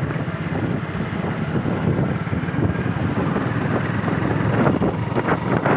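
Wind rushing over the microphone of a moving vehicle, with its engine running steadily underneath at cruising speed.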